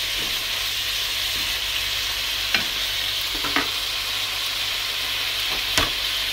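Sliced beef with bell pepper and onion sizzling steadily in a nonstick frying pan as it is stir-fried, with three short knocks of the utensil against the pan.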